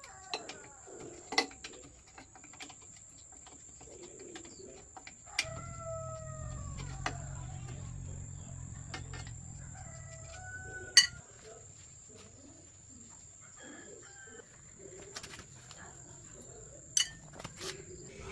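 A rooster crowing once, about five seconds in. Sharp clicks and knocks are scattered throughout, the loudest about eleven seconds in.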